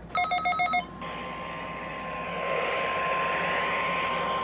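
A quick run of four electronic beeps, then a steady single-pitch alarm tone starting about a second in: the NOAA Weather Radio 1050 Hz warning alarm tone, which signals that a new warning is about to be read. It plays over radio static that grows louder about two seconds in.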